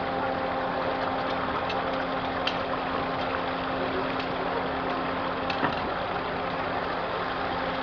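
A motor running steadily, a constant hum over a rushing hiss, with a few faint clicks.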